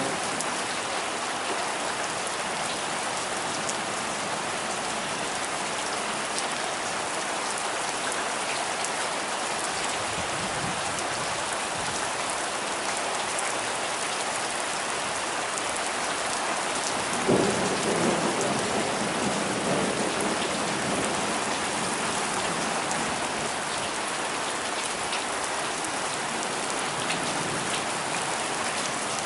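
Heavy rain pouring down steadily. A little past halfway, a clap of thunder breaks in suddenly and rumbles on for several seconds before fading.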